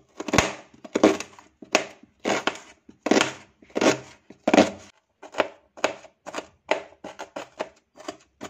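Paring knife chopping a small red onion on a plastic cutting board: a series of sharp cuts against the board, about one and a half a second at first, quickening to about three a second about five seconds in as the onion is diced.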